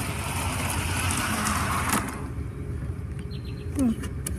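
Model train running along a garden railroad track, its motor and wheels making a steady whirring noise that cuts off sharply about halfway through as the train stalls on the rain-damaged track. A brief vocal sound follows near the end.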